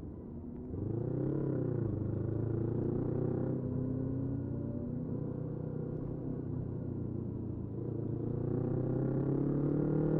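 Motorcycle engine running. It rises and falls in pitch briefly about a second in, holds fairly steady, then climbs steadily from about eight seconds in as it accelerates.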